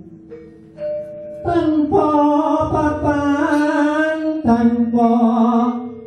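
Javanese gamelan music with a voice singing long, slightly wavering held notes. A quieter lull at the start, then the music and singing swell after about a second and a half, dipping briefly again near the end.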